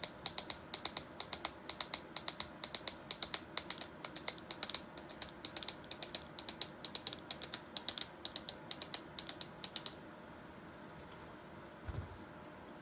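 Wooden popsicle sticks clacked together in a galloping rhythm, imitating horse hooves. The sharp clicks stop about ten seconds in, and a soft low thump follows near the end.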